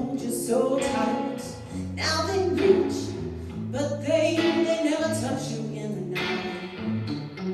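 A song with a singer's vocal line over instrumental accompaniment, with steady held bass notes underneath.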